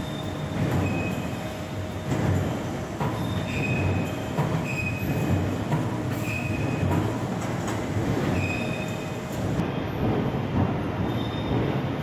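Steady steel-mill machinery noise with a low rumble and short, high metallic squeals repeating about once a second.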